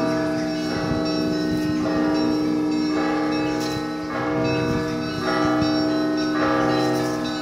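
Russian Orthodox church bells ringing from a monastery belfry: several tuned bells struck in a repeating pattern, a new cluster of strikes about once a second over the lingering ring of the larger bells.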